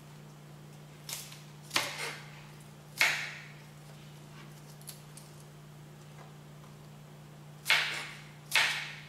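Knife cutting through the thick stem pieces of napa cabbage on a cutting board: a handful of crisp, crunching cuts. One group of cuts comes in the first few seconds and another pair comes near the end.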